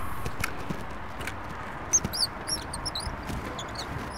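Small birds chirping in short, high, repeated calls from about halfway through. Underneath is a steady low background noise, with a few light clicks early on and a sharper knock just before the chirping starts.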